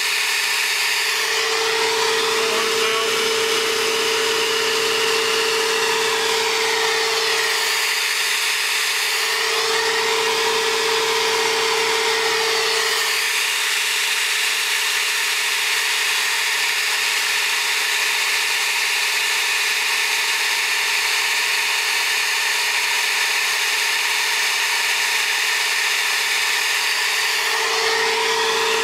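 Flow bench motors running steadily, pulling air through a Studebaker cylinder head's port with the valve held open 0.400 inch. A constant rush of air, with a steady humming tone over it that drops out twice and comes back near the end.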